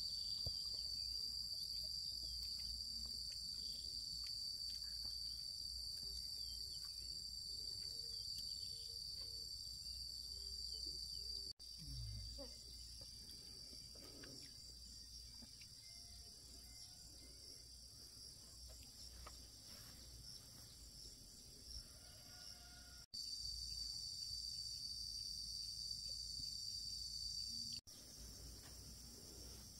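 A steady, high-pitched chorus of insects trilling without a break, over a low rumble. The sound cuts out abruptly and resumes three times, at about 11.5, 23 and 28 seconds in.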